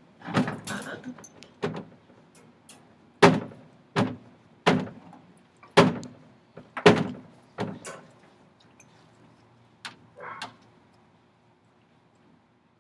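Wire dog crate clanking and rattling in a run of sharp metallic knocks, about ten of them irregularly spaced, which stop about ten seconds in.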